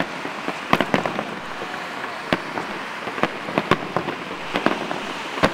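Fireworks display shells bursting: a run of sharp bangs at irregular intervals, several close together at times, over a steady hiss.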